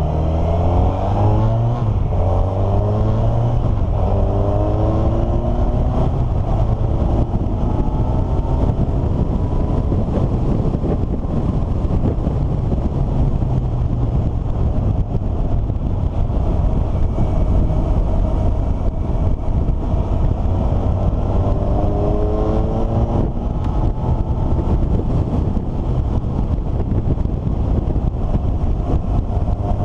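Vehicle engine accelerating and shifting up, its pitch climbing in steps several times in the first few seconds and again about two-thirds through. Underneath runs a steady low rumble.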